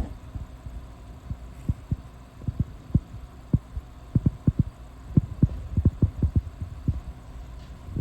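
Border collie puppy dreaming in its sleep, making a run of soft, short, low thumps at an irregular pace, bunching into quick clusters about halfway through and again near the end, over a faint steady hum.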